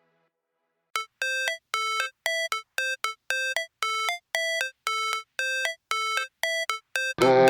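Background music: after about a second of silence, a new track starts with a riff of short, repeated high notes, about three a second, and the full beat comes in near the end.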